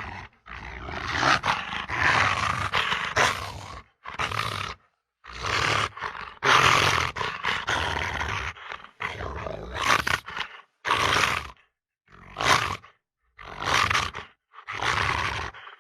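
Velociraptor creature sound effects: a string of about eight separate raspy screeches and growling roars, each lasting from half a second to a few seconds, with short silent gaps between them.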